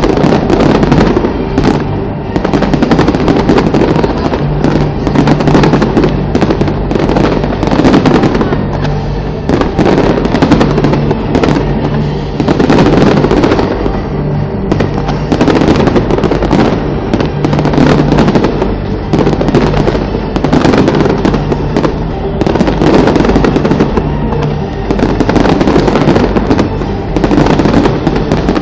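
Fireworks going off in a dense, continuous barrage of overlapping bangs and crackles, very loud, over a low steady tone that comes and goes.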